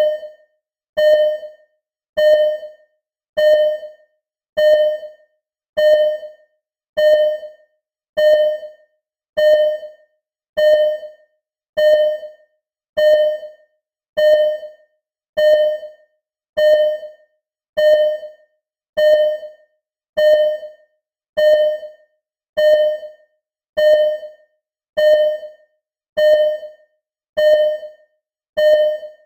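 Simulated ECG heart-monitor beeping: a short, single-pitched electronic beep that fades quickly, repeating in a steady rhythm of about one every 1.2 seconds.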